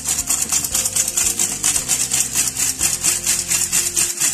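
Stainless steel squeeze-handle flour sifter working flour through its mesh so there are no lumps: a rapid, even rasping, several strokes a second, as the wire agitator scrapes across the screen with each squeeze.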